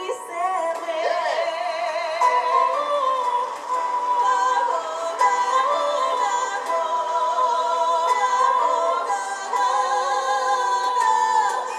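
A song sung by high female voices, with long held notes and wide vibrato, over instrumental accompaniment.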